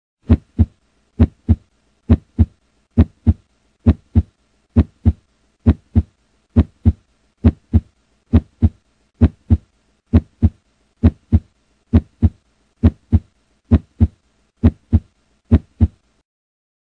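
Slow, steady heartbeat: paired lub-dub beats about 0.9 s apart, about eighteen in all, stopping about a second before the end.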